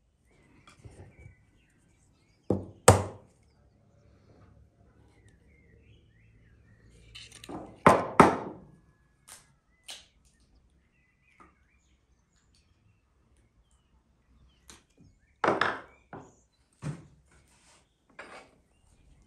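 Sharp knocks and taps of boiled eggs and wooden bowls against a wooden table and dishes, as eggshells are cracked and peeled and wooden bowls set down. The loudest knocks come about three seconds in, around eight seconds in, and twice more a few seconds before the end, with soft handling noise between.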